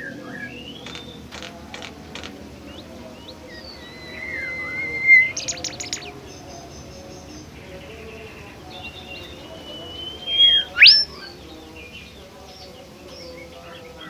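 Bimoli bird singing: scattered clear whistled notes, some held steady and some sliding. The loudest come about five seconds in and again near eleven seconds, where one note sweeps sharply upward.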